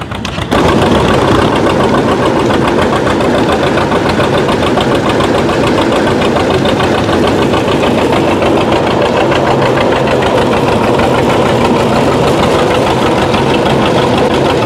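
Antique tractor engine running steadily under load with an even firing beat, belted to a Prony brake for a horsepower test. It cuts in abruptly about half a second in.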